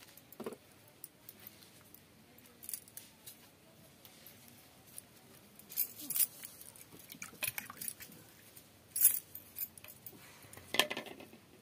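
Bangles jingle and clink in short bursts, several times, as hands work on a stone grinding slab. There is a louder clink near the end.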